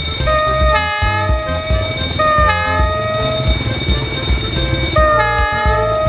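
Diesel locomotive horn sounding three blasts of about a second or more each, a few seconds apart, over a steady low rhythmic pulse.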